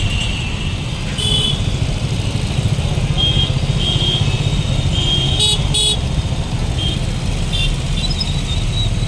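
Steady road-traffic rumble with short vehicle horn toots sounding several times.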